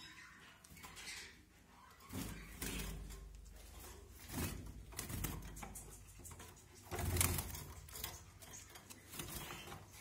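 Knocks, clicks and rattles of a plastic seed tub being handled and set into a wire bird cage, the loudest clack about seven seconds in.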